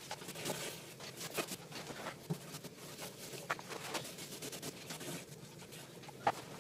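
Paintbrush strokes laying finish onto plywood: a run of soft, irregular scratchy swishes of the bristles on the wood.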